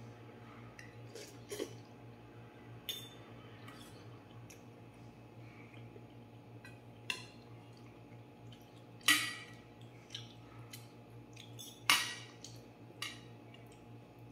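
Metal spoon and fork clinking against a stainless steel bowl while eating, in scattered taps, the two loudest about nine and twelve seconds in. A low steady hum runs underneath.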